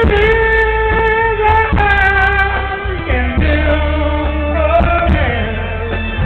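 Live rock band playing loudly over heavy bass, with a singer holding long notes that change pitch every second or so.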